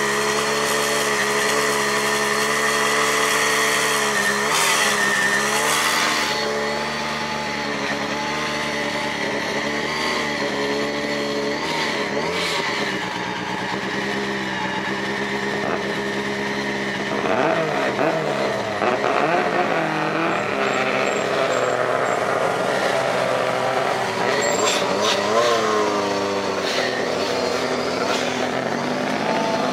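Group B rally car engines running. A Lancia Delta S4 idles with a couple of throttle blips, then rally cars rev up and fall back several times as the pitch rises and drops.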